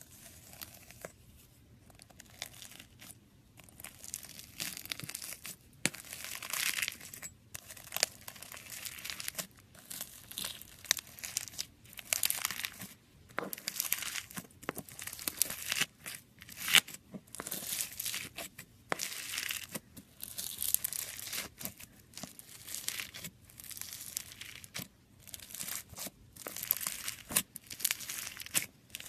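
Slime being squeezed and stretched by hand, giving irregular bursts of sticky crackling and popping, some louder than others.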